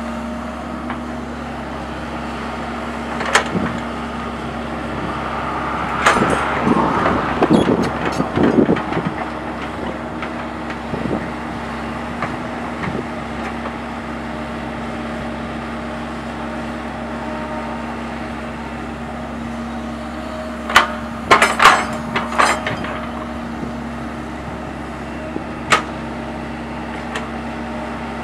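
Sumitomo hydraulic excavator's diesel engine running steadily while it digs, with sharp metallic clanks from the bucket and boom linkage: one a few seconds in, a quick cluster around three-quarters of the way through, and another near the end. A louder, rougher surge rises and falls from about six to nine seconds in.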